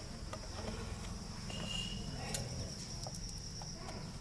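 Faint background sounds: a steady high-pitched whine throughout over a low rumble, a short chirp about one and a half seconds in, and a single sharp click a little after two seconds.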